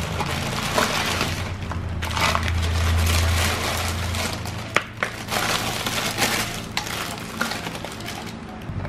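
Plastic mailer bag and cellophane wrapping crinkling and rustling as wrapped items are pulled out and handled, with a sharp tap about five seconds in.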